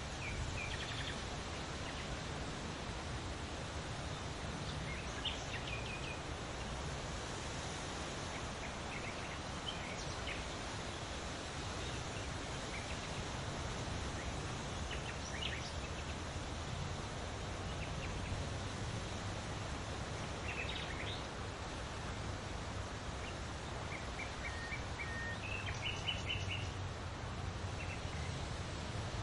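Outdoor ambience: a steady hiss and low hum, with short bird chirps every few seconds and a quick run of chirps near the end.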